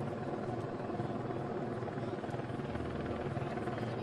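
Steady mechanical drone with hiss carried over a fire-department two-way radio channel.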